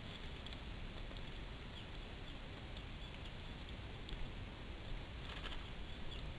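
Steady outdoor hiss and low rumble on a nest-camera microphone, with faint scratchy rustles and ticks from the Bonelli's eagle shifting on its twig nest. A short cluster of rustling comes about five seconds in.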